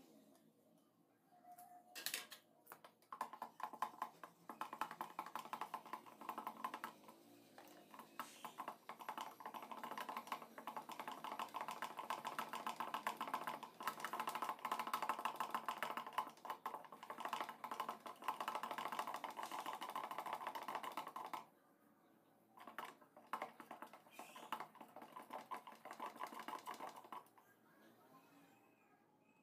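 Rapid, continuous clicking and scraping of a stick stirring liquid in a cut-open plastic jerrycan, with a short break about two-thirds of the way through, tailing off near the end.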